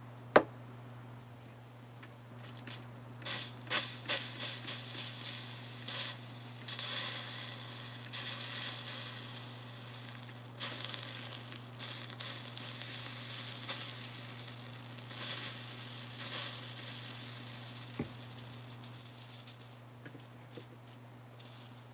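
Hand spray bottle spritzing water onto a freshly soldered spoon joint to cool it, in a run of short, irregular hissing sprays. A sharp click about half a second in.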